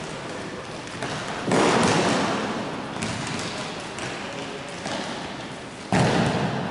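Two loud thuds echoing through a large sports hall, about a second and a half in and again near the end, each dying away slowly, with fainter taps between them during a basketball game.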